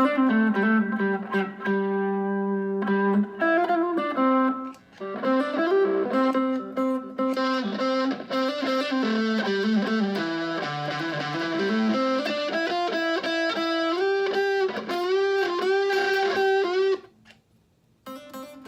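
Fender Stratocaster electric guitar played through effects: a slow single-note melody of held, sustained notes with string bends. It stops briefly near the end, then comes back in.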